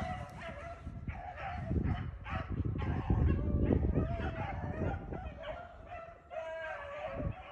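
A pack of beagles baying and yelping on a rabbit's trail, several dogs' voices overlapping, as the chase comes toward the listener.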